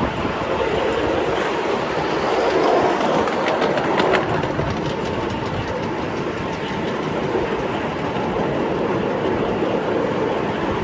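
5-inch gauge ride-on miniature train running along the track, with a steady rolling noise of wheels on rail and a brief clatter about four seconds in.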